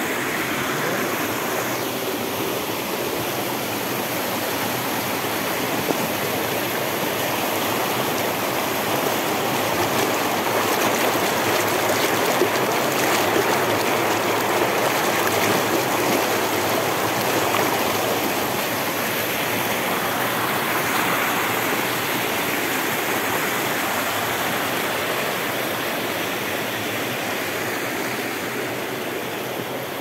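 Mountain waterfall rushing: a steady, unbroken noise of falling water that grows slightly louder through the middle.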